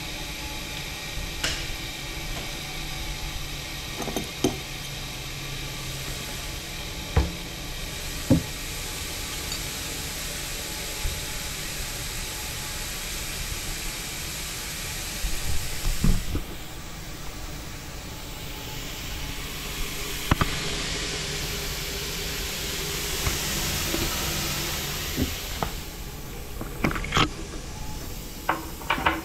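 DeVlieg Micropoint precision tool grinder running under power: a steady machine hum with several held tones, a hiss that swells for a few seconds past the middle, and a few scattered knocks and clicks.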